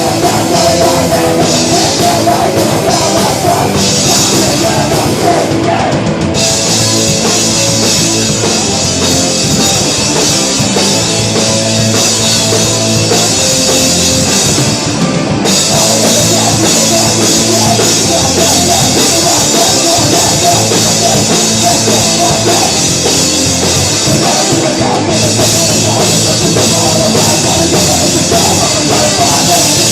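A live hardcore/crossover thrash band playing loud, with distorted guitars, bass and a pounding drum kit. The cymbals come in harder about six seconds in.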